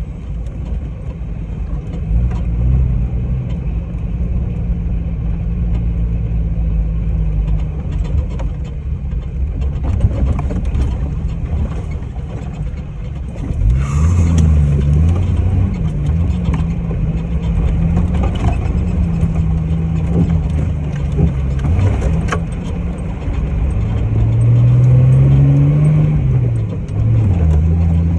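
Off-road 4x4's engine running while driving. Its pitch rises and falls as it revs: sharply about halfway through, and again in a rising sweep near the end.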